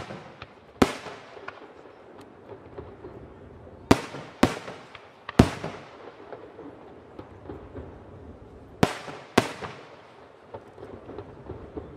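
Fireworks display: aerial shells bursting with six loud sharp bangs, two of them pairs about half a second apart, each followed by a fading rumble. Smaller pops and crackle fill the gaps between.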